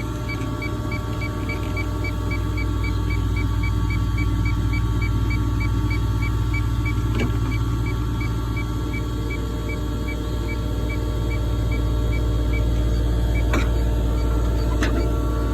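Steady low hum of running air-conditioning equipment, with a rapid electronic beeping about three times a second and a few sharp clicks, one about halfway and two near the end.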